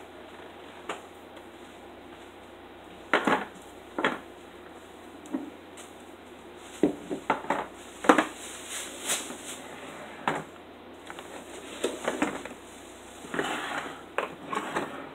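Small metal Vienna sausage cans being set down and moved on a wooden table one after another: a string of separate, irregularly spaced clinks and knocks, with some shuffling near the end.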